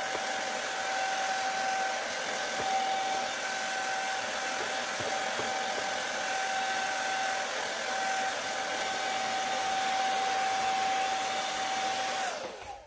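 Handheld hair dryer running steadily, a steady whine over a rush of blown air. Near the end it is switched off and the whine falls in pitch as the motor spins down.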